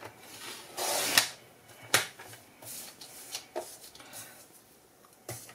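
Paper trimmer's sliding blade cutting through white cardstock: a short scraping swish about a second in, followed by a sharp click and a few light taps as the paper is handled.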